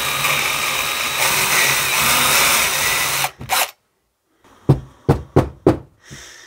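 Cordless drill on its slow setting, not on hammer, boring out a brake wheel cylinder's stripped bleed-nipple hole with an 8 mm bit: a steady whir of the bit cutting metal for about three seconds that stops suddenly, then a brief blip. About a second later come four short, sharp knocks about a third of a second apart, then a faint hiss.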